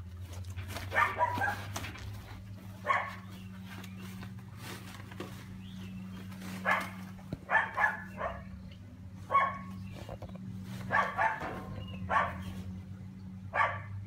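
Short, loud bark-like animal calls, repeated every second or two, sometimes in quick pairs, over a steady low hum.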